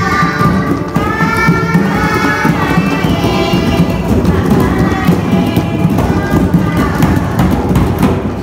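A group of young children and a teacher beating djembes, congas and small hand drums together in a busy, continuous rhythm, with singing over the drumming for the first few seconds.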